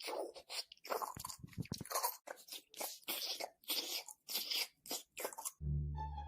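Loud crunchy chewing close to the microphone, a bite about every half second. Near the end it stops and music begins.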